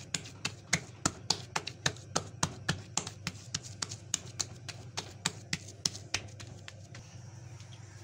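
Hands patting and pressing oiled wheat paratha dough flat on a granite countertop: quick, sharp pats, about three or four a second, that stop shortly before the end.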